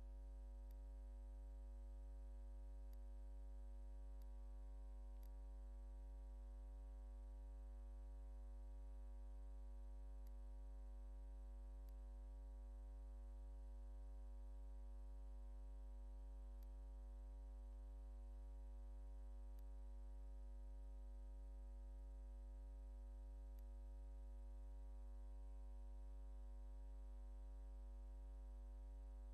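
Steady electrical hum: a low drone with a stack of steady higher tones above it, unchanging throughout, with a few faint ticks.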